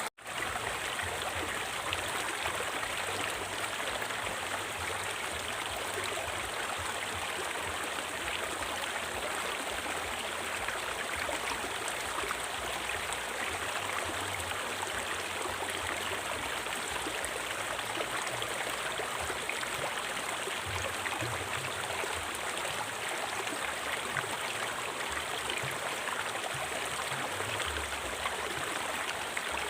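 Steady rush of flowing river water, with a split-second dropout just after it begins.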